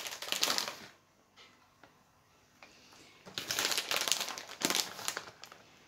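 Plastic cheese packet crinkling as it is handled, in two spells: about a second at the start, then a longer spell a little past halfway.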